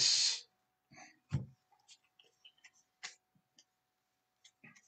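Stack of trading cards being handled and flipped through by hand: scattered short, irregular clicks and flicks of card edges against one another, with a soft low knock about one and a half seconds in.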